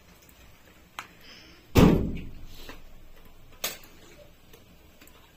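A sharp knock, then a loud heavy thud that rings out low and dies away over about half a second, then another sharp knock.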